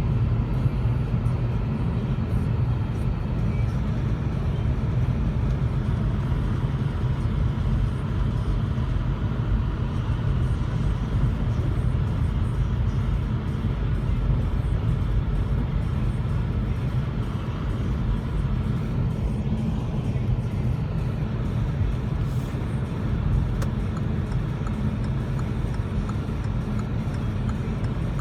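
Car interior on the move: a steady low rumble of engine and tyre road noise.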